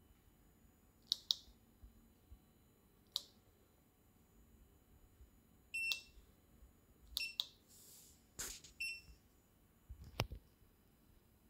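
Scattered sharp clicks and two short electronic beeps, about six and nine seconds in, with a brief rustle between them: the beeper of a Xiaomi Mi Electric Scooter Essential sounding as its button is pressed.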